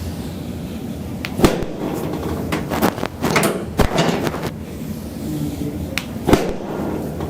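Sharp knocks and cracks from a chiropractic spinal adjustment on a treatment table, about eight in all, spaced irregularly, the loudest about one and a half seconds in.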